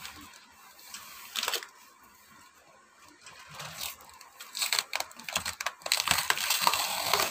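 Cardboard box and tissue paper being handled and torn open: a short rustle about a second and a half in, then dense crinkling and tearing through the last few seconds.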